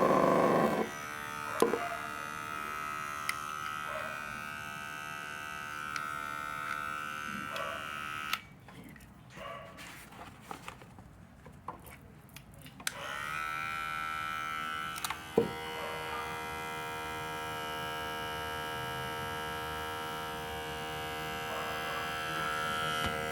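Electric hair clipper running with a steady motor hum, with a few small handling clicks. The hum drops away for about four seconds past the middle, then the clipper runs steadily again.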